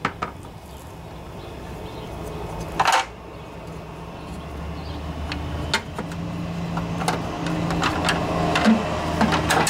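Red plastic engine shroud of a Toro Recycler lawnmower being handled and fitted back over the Tecumseh engine's recoil starter: scattered plastic clicks and knocks, with one sharp clatter about three seconds in. A low engine hum builds underneath from about halfway.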